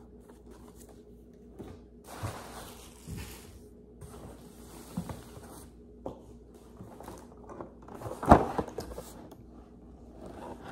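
Handling noise: objects shifted and rustled on the floor, with soft knocks and one louder thump about eight seconds in.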